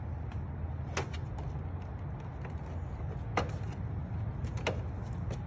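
A few sharp clicks and knocks from a hand handling the plastic storage compartment in the tank of a Zero electric motorcycle, as the charging cable is taken out, over a steady low rumble.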